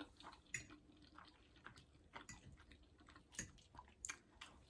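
Faint, close-up chewing of soft macaroni and cheese: irregular soft wet mouth clicks.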